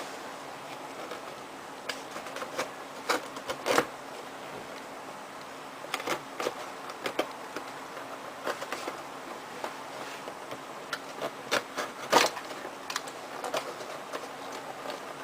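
Packaging being handled during an unboxing: scattered clicks, taps and rustles, loudest about 3 to 4 seconds in and again near 12 seconds, over a faint steady hum.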